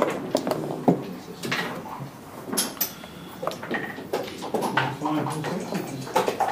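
Backgammon checkers and dice clicking and clacking on the board as moves are played: a string of sharp, irregular clicks, the loudest at the very start and about a second in, with background talk.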